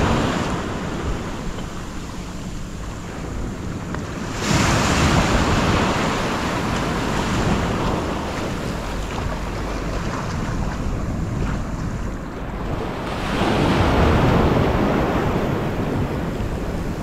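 Ocean surf washing in and breaking around a wading angler, with a wave surging in sharply about four and a half seconds in and another swell near the end. Wind is buffeting the microphone.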